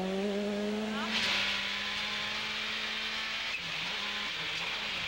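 Toyota Corolla WRC rally car's turbocharged four-cylinder engine running at high, steady revs, with a hiss of tyres and gravel from about a second in. Near the end the revs dip and climb back a few times.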